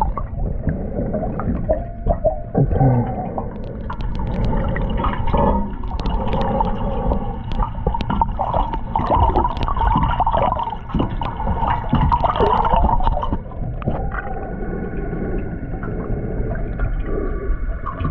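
Muffled underwater sound picked up by a GoPro in its waterproof housing: irregular gurgling and sloshing of water with scattered clicks and knocks. About two-thirds of the way through a steady hum of several tones sets in.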